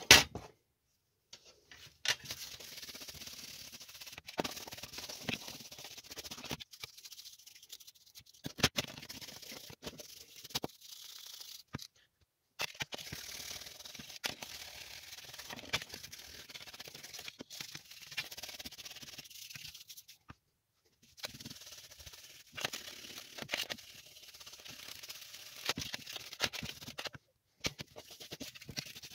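Scratchy brushing or scraping by hand, a steady rasping hiss dotted with small clicks and knocks, breaking off briefly a few times.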